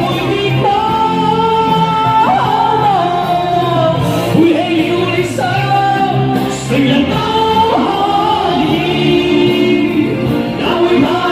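A singer performing a pop song over instrumental accompaniment, holding long notes with vibrato.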